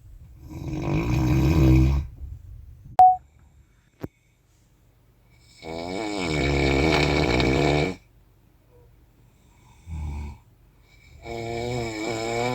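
A person snoring in four rasping, pitched breaths, each one to two seconds long, with a short low one about ten seconds in. About three seconds in there is a brief loud high tone, and a second later a click.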